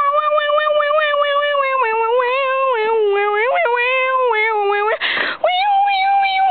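A child's voice holding long, loud wailing notes, the pitch stepping down and back up a little from note to note. It breaks off briefly about five seconds in, then comes back with another held note.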